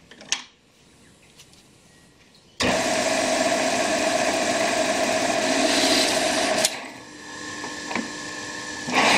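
Varnamo metal shaper: a click, then about two and a half seconds in the machine starts abruptly and runs with a steady mechanical whir and hum. About two-thirds of the way through it drops to a quieter running sound with a higher whine and a single click, then comes back to full loudness near the end.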